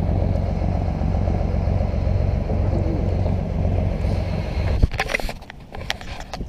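Fishing charter boat's engine running steadily under way with a low rumble. About five seconds in the rumble drops away suddenly at a sharp knock, leaving a few quieter knocks and clatter on deck.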